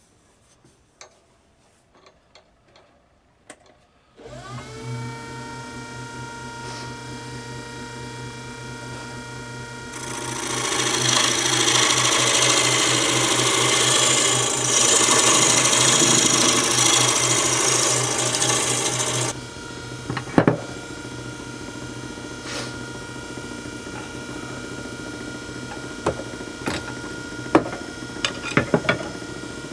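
Wood lathe motor starting about four seconds in, its whine rising briefly to speed, then running steadily. From about ten seconds in, a turning tool cuts into the spinning oak blank with a loud, even scraping for about nine seconds, then stops while the lathe keeps running, with a few light taps near the end.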